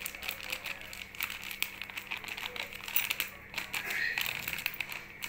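A plastic spice packet crinkling and crackling in the hands as it is squeezed and shaken to pour powder into a glass, a rapid scatter of small crackles.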